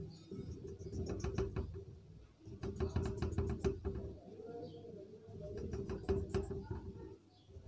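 Whiteboard marker drawing strokes on a whiteboard, squeaking and scratching in three bursts, over a steady low hum.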